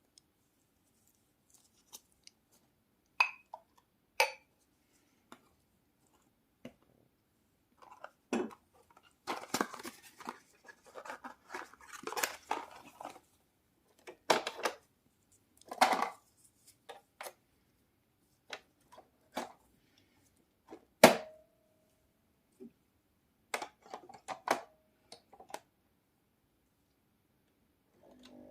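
Hand-handling noises: scattered plastic clicks and knocks with bursts of crackly rustling. One sharp click with a short ring about two-thirds of the way through is the loudest.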